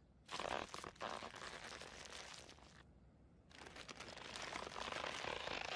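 Cartoon sound effect of a character slowly wetting his eyes: two long stretches of quiet, wet, crinkly noise, each about two and a half seconds, with a short pause between them.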